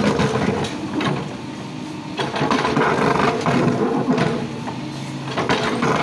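Mahindra SX90 backhoe loader's diesel engine running under hydraulic load as the backhoe arm swings and lowers the bucket, growing louder about two seconds in. A few sharp knocks of the bucket against concrete and brick rubble.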